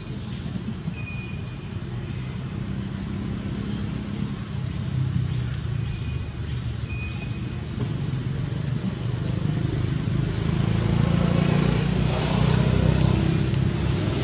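A motor vehicle engine running in the background, its low rumble growing louder over the last few seconds. Under it runs a steady high insect buzz, with a few short high chirps early on.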